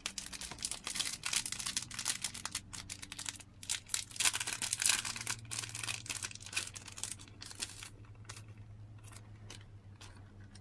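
Thin plastic packet crinkling and tearing as a microfiber cleaning cloth is opened and pulled out of it. The crackle is densest through the first eight seconds and thins to scattered ticks near the end.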